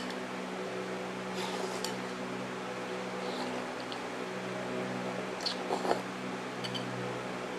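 A few short, soft slurps and sips of a man eating noodle soup from a bowl held at his mouth, over a steady low hum.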